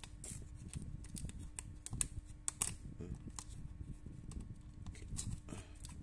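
Fingers picking at and peeling the clear tape seal on a cardboard retail box and prying at its end flap: irregular small clicks, crinkles and scrapes.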